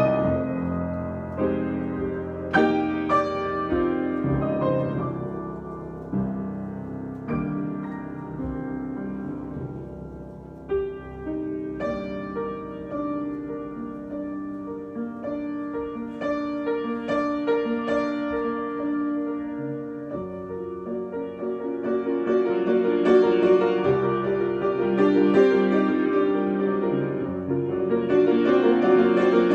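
Solo piano improvisation: struck notes and chords ringing out, softer in the middle and growing fuller and louder from about twenty seconds in.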